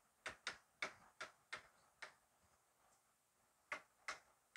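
Chalk clicking against a blackboard in short, sharp taps as lines and letters are drawn: a run of six over the first two seconds, then two more near the end.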